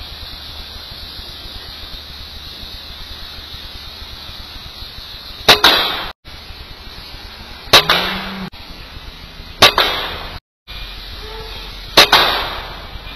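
Four shots from a PCP air rifle, each a sharp crack with a short trailing ring, the first about halfway in and the rest about two seconds apart, over a steady faint hiss.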